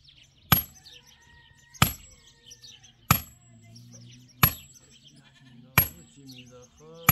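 Sledgehammer blows breaking stones, six sharp ringing strikes evenly spaced a little over a second apart, with sheep bleating between the strikes.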